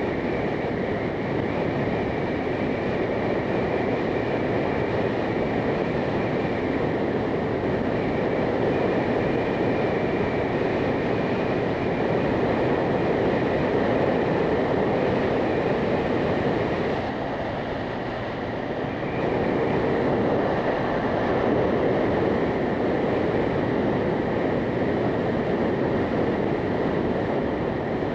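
Steady rush of wind and road noise from a moving motorcycle, easing briefly a little past halfway before picking up again.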